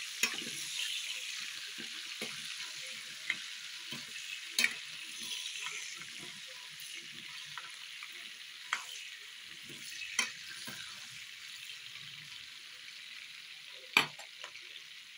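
Sliced red onions sizzling in hot vegetable oil in a stainless steel pot, stirred with a metal spoon that clinks sharply against the pot a handful of times, loudest near the end. The sizzle slowly grows quieter.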